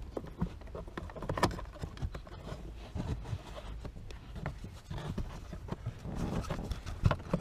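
Irregular clicks and knocks of hard plastic, with some rustling, as a hand works at the cabin filter housing and its door in a car's passenger footwell.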